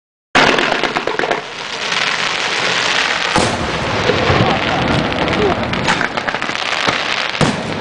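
Aerial fireworks display: shells bursting with dense, continuous crackling and popping, with sharp loud bangs about three seconds in and again near the end. The sound cuts in suddenly just after the start.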